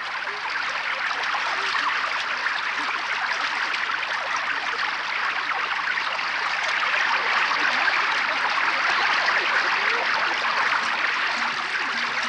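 Fast-flowing river rushing and churning steadily around people wading through it.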